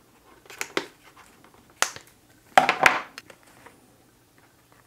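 Scissors cutting a notch into the stiff edge of a motorcycle helmet's padding: a few short snips in the first two seconds, then a louder, longer crunching cut about three seconds in.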